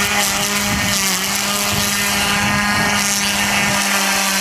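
Fun Cub RC airplane's motor and propeller running at a steady speed while chopping through grass as a makeshift mower, holding one even pitch throughout.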